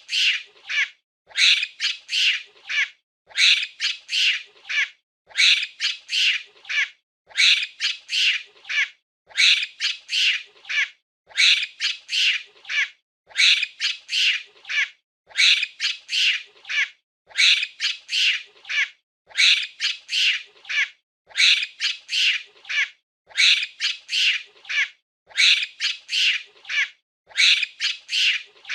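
Monkey giving high-pitched calls in quick groups of three or four, a group about every two seconds, repeating evenly.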